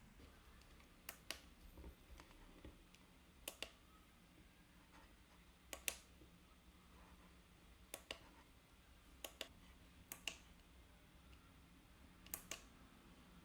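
Buttons on a sunrise alarm clock pressed and released, each press giving a sharp double click, about seven presses one every one to two seconds, against near silence.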